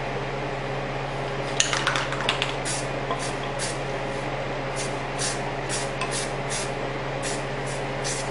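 Aerosol spray-paint can (rattle can) sprayed in short, light bursts, dusting camouflage paint through a mesh net: a quick cluster of hisses about a second and a half in, then a string of about a dozen brief puffs roughly every half second. A steady low hum runs underneath.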